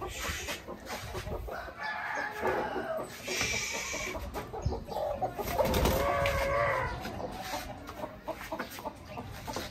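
Broody hen clucking after being lifted off her eggs: several short calls, with a longer drawn-out call about six seconds in.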